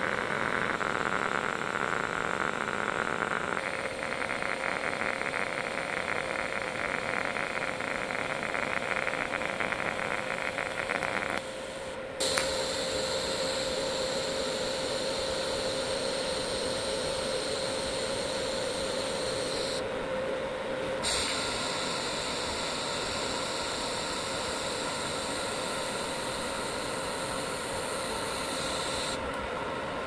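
TIG welding arc on a steel cooler box, hissing steadily as filler rod is fed in by hand. The hiss changes abruptly several times between stretches of welding.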